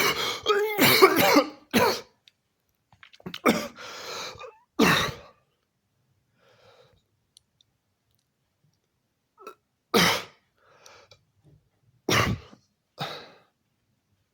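A person coughing: a quick run of coughs in the first two seconds, then single harsh coughs spaced out with gaps of up to several seconds, with faint breaths between them.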